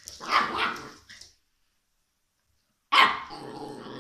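Shiba Inu puppies playing: a couple of short barks in the first second, a pause, then from about three seconds in a sudden, drawn-out play growl.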